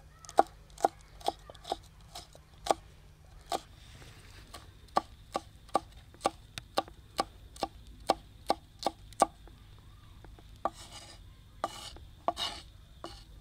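Kitchen knife chopping on a cutting board in steady strokes about twice a second, stopping after about nine seconds. A few short scraping noises follow near the end.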